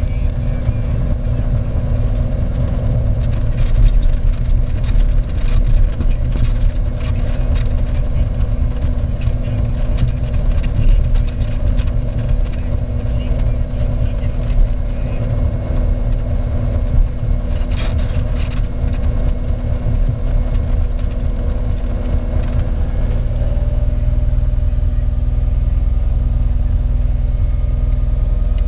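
Cessna 182R's six-cylinder Continental piston engine and propeller running at low power on the ground, heard inside the cabin as a steady drone with light rattles and clicks. The engine tone settles to a slightly different, steadier note near the end.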